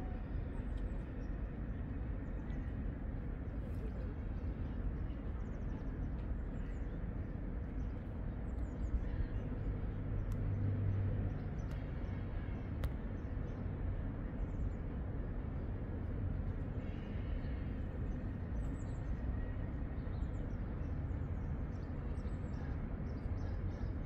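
Outdoor city ambience: a steady low rumble, swelling briefly about ten seconds in, with faint bird chirps scattered throughout.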